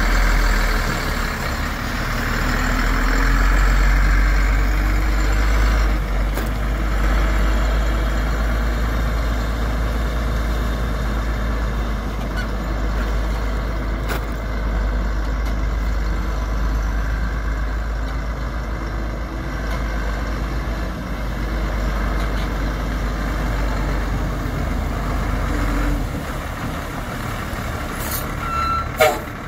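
Steady low rumble with a vehicle-like running noise behind it, easing off about 26 seconds in; a brief sharp sound near the end.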